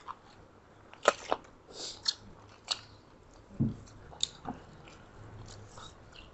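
Close-up eating sounds picked up by a clip-on microphone: chewing with a scattering of short, wet mouth clicks and smacks, and one low thump about three and a half seconds in.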